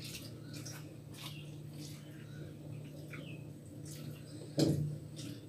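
Eating at the table: fingers mixing rice on steel plates with soft chewing and mouth clicks, over a steady low hum. A short, louder thud comes about four and a half seconds in.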